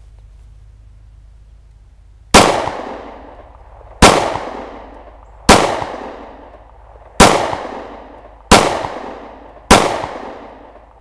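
Smith & Wesson M&P Shield 9mm pistol firing six single shots of Tula 115-grain target ammunition, the first about two seconds in and the rest about one and a half seconds apart, each shot trailing off over about a second. The pistol feeds and ejects without a malfunction.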